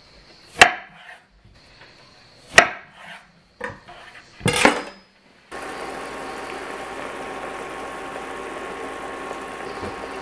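A kitchen knife knocking sharply on a wooden cutting board four times while paring an orange. About five and a half seconds in, this gives way to a steady, even hiss with a faint hum.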